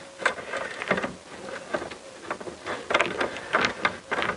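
Socket wrench being worked on the lower steering stem nut: light, irregular metal clicks and ticks, several a second. The nut is being wound down to draw the new lower steering bearing onto the stem through an old fork stanchion tube.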